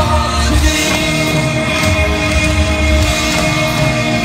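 Live band music: a large ensemble of drum kits playing together over sustained, held instrumental notes.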